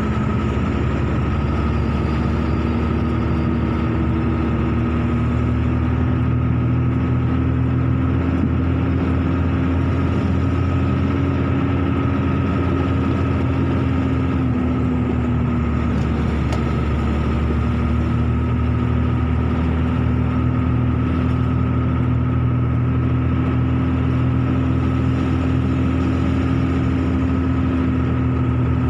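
Car engine running steadily with tyre and road noise while driving, heard from inside the car: a constant hum whose pitch shifts only slightly.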